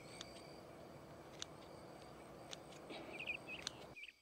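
Scissors snipping dandelion leaves, a soft click about once a second, over faint steady insect trilling, with a bird chirping briefly near the end.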